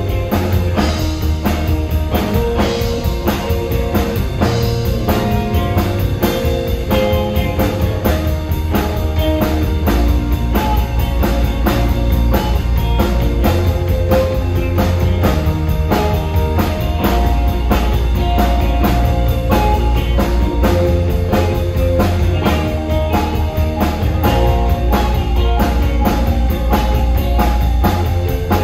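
Live rock band playing: a drum kit keeps a steady beat under bass and electric guitar.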